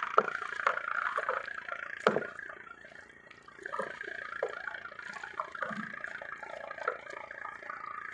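Water splashing and sloshing, with scattered short knocks.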